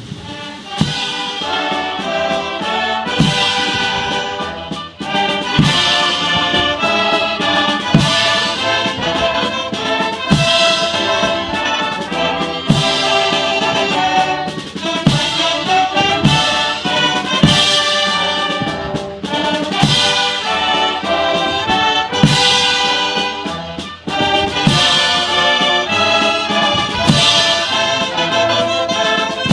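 Military brass band playing honors music: a march with trumpets and trombones over a steady beat, with a strong crash about every two and a half seconds.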